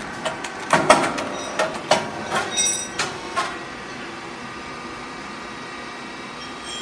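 Grain cake puffing machine running: a quick irregular series of sharp metallic clacks and knocks for the first three and a half seconds, then a steady machine hum.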